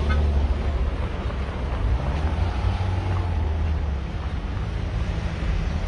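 Steady wind noise on the microphone over the low rumble of a car driving along a dirt road shoulder. The rumble is strongest in the first couple of seconds and eases a little near the end.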